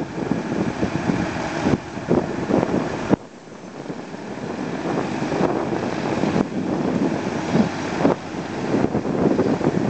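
Wind buffeting the microphone in uneven gusts, dropping away suddenly about three seconds in and then building back up.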